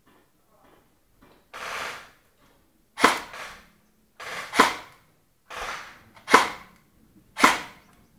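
Airsoft guns firing single shots: four sharp cracks over the last five seconds, a second or more apart, mixed with short hissing bursts.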